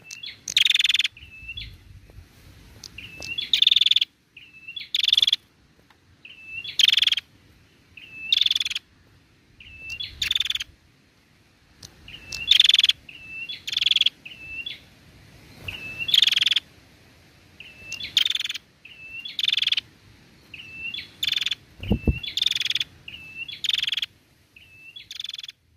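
Female prenjak calling steadily: short hooked chirps alternating with a loud harsh buzzing note, the cycle repeating every one and a half to two seconds. A brief low thump about 22 seconds in.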